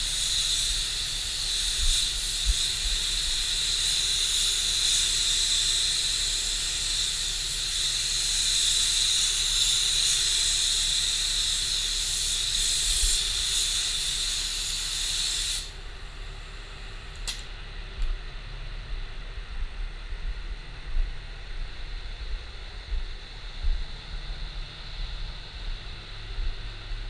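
Gravity-feed automotive spray gun hissing steadily as compressed air atomizes clear coat onto a car bumper. The hiss cuts off abruptly a little past halfway as the trigger is released, leaving a quiet low hum and a few faint knocks.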